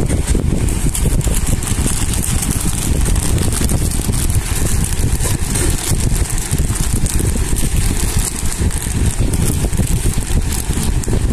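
Plastic courier mailer bag crinkling and tearing as it is pulled open by hand, over a loud, steady low rumble.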